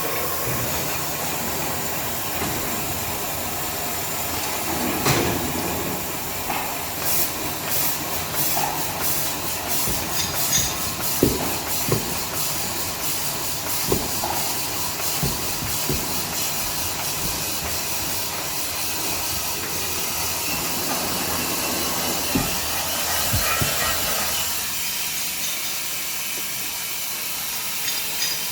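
Automatic band saw toilet paper cutting machine running, a steady mechanical hiss with scattered sharp knocks. The lower part of the running noise drops away about three-quarters of the way through.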